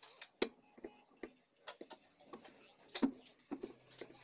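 Irregular small clicks, taps and scratches of hands handling the red high-voltage lead and the flyback transformer on a CRT TV's circuit board, with a sharper click about half a second in and another about three seconds in.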